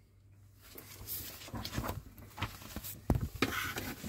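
Paper and cardboard being handled on a tabletop: rustling and light taps, with a sharper knock about three seconds in.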